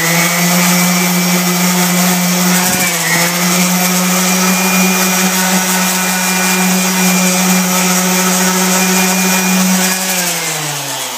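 DeWalt 5-inch random orbital palm sander running at full speed, pressed against dried drywall joint compound: a steady motor hum with a sanding hiss. Near the end it slows down, its pitch falling.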